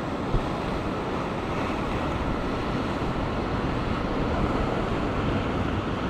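Ocean surf washing against coastal rocks, with wind on the microphone mixed in; a steady rush of noise.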